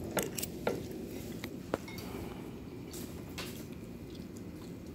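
Metal spoon clinking and scraping against a glass bowl while scooping rice and orange chicken: several sharp clinks in the first two seconds, a couple more about three seconds in.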